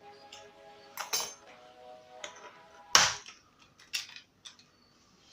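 Plastic snap clips of a Lenovo laptop's bottom cover clicking and cracking loose as the cover is pried off, several sharp snaps with the loudest about three seconds in. Faint background music underneath at first.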